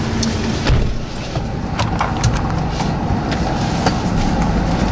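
Car driving, heard from inside the cabin: steady engine and road rumble, with a few light clicks.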